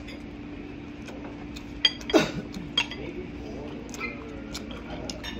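Cutlery clinking a few times against plates over a steady low hum. About two seconds in, a loud short sound slides steeply down in pitch.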